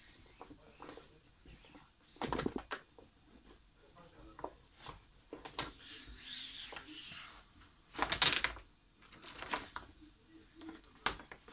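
Vinyl wrap film being handled and smoothed by hand: irregular crinkling rustles, a longer sliding rub of palms over the film about six seconds in, and the loudest crackle about eight seconds in.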